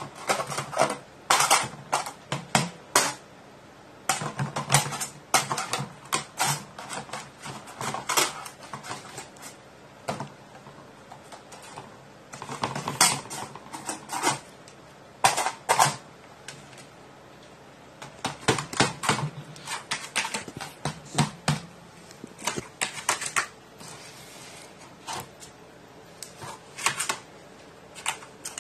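A crow pecking and tapping at a small toy drum whose head is patched with silicone resin: irregular runs of quick, sharp taps and knocks, broken by short pauses.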